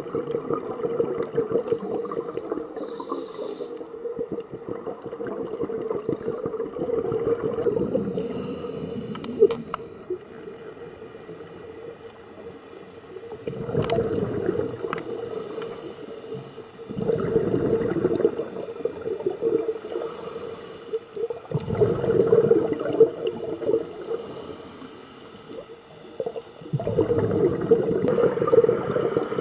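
A scuba diver's regulator breathing, heard through an underwater camera housing. Gurgling rushes of exhaled bubbles come about every four to five seconds, with quieter stretches between them; the first third is a more continuous bubbly rush.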